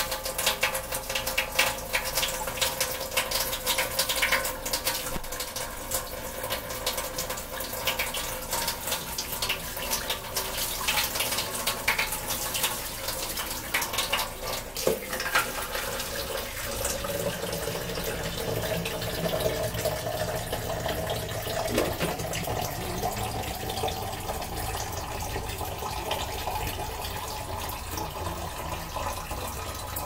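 Water running and splashing into a kitchen sink as hair is rinsed with water poured from a plastic cup, with many small splashes in the first half.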